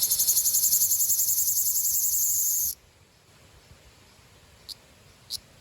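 Ryukyu large brown cicada calling with a loud, fast-pulsing high buzz that cuts off suddenly about two and a half seconds in. Near the end come two brief high chirps.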